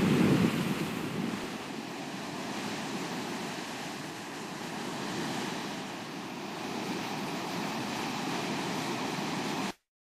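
Ocean surf and wind: a steady rushing of waves that swells in the first second, then stops abruptly just before the end.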